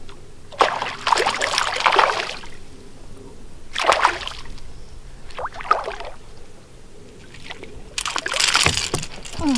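A hooked young giant snakehead thrashing at the water surface beside a boat, in four bursts of splashing separated by quieter gaps.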